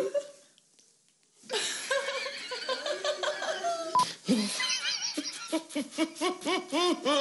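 Laughter: after about a second of silence, a man laughs helplessly, with a quick run of repeated bursts near the end.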